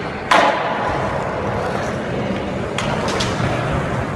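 A skateboard striking with a sharp clack about a third of a second in, followed by skateboard wheels rolling on a hard floor and two lighter clacks near three seconds.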